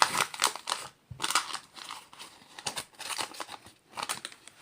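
Sticker sachet wrapper crinkling and crackling in the hands as stickers are pulled out of it, in a run of short irregular crackles with brief pauses.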